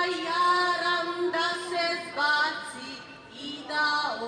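A high voice singing a slow, drawn-out folk-style melody in phrases of about a second, over a steady low held note.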